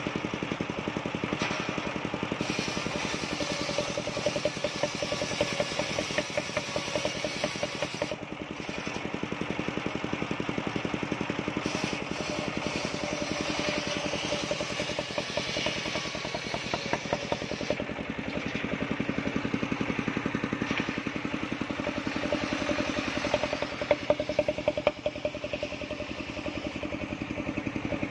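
Engine-driven homemade circular saw bench running steadily, its large blade ripping waru wood into strips. The cutting noise swells and eases over the engine's steady note as each board is fed through.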